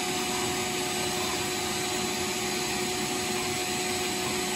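Vacuum cleaner running steadily with a constant whine, its hose wand sucking dust off a hearth floor.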